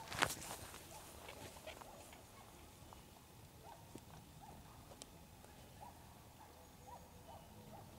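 A golf driver strikes a ball: one sharp crack about a quarter second in. Faint short chirps repeat in the background through the second half.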